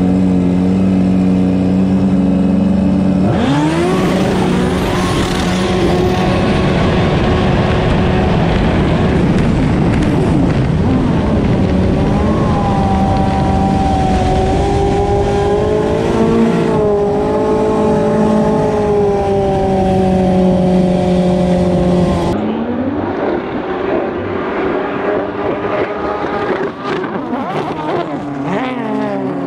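Race jet ski engine idling steadily, then about three seconds in the throttle is opened and the engine revs up sharply and holds at full power for a long run, over a rush of wind and water. After a sudden change near the end, a race jet ski engine is heard from farther off, its pitch sliding down and up as it runs past.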